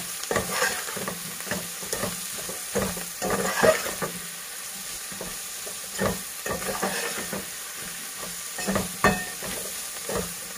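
Metal spatula scraping and knocking irregularly against a metal pot as chopped vegetables are stirred in hot oil, with a steady sizzle of frying underneath.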